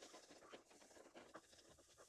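Faint, scattered scrapes and taps of a spatula against a metal kadai as scrambled egg is stirred, with no frying sizzle.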